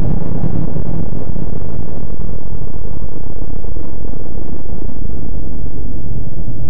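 A loud, steady, deep rumbling drone: an artificial "space sound" of the kind presented as the sound of a planet. It is dense, without a clear pitch or rhythm.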